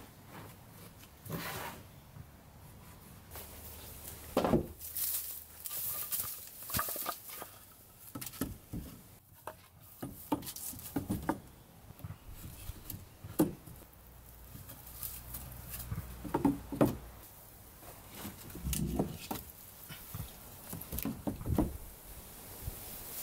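Scattered knocks, scrapes and rustles of hand work on a wooden bench, coming at irregular intervals, with some footsteps.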